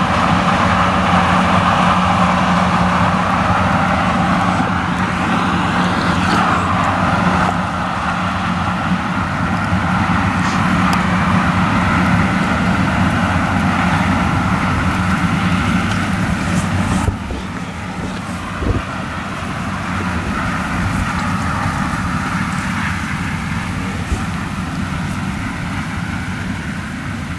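Claas Lexion 760 TT combine harvester working a maize crop with its nine-row Geringhoff corn header: a steady engine drone under a broad machine noise. The level drops a little about two-thirds of the way in, followed shortly by a brief knock.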